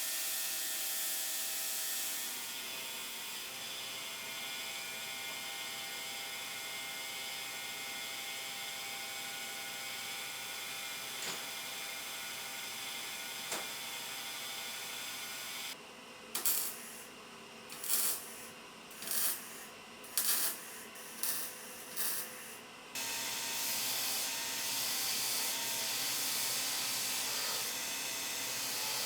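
Steady hissing workshop noise from work on rusty rifle metal. Midway it breaks into a run of about seven short, sharp hisses, each under a second, before the steady hiss returns.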